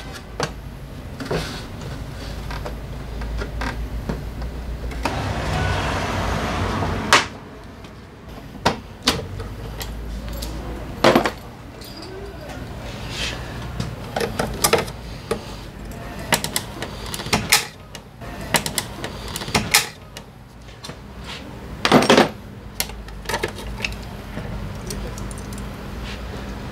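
Scattered sharp clicks, knocks and small metallic clinks of hand tools and plastic body panels being worked on a scooter, over a low steady hum. About a fifth of the way in, a rushing noise swells for two seconds and cuts off suddenly.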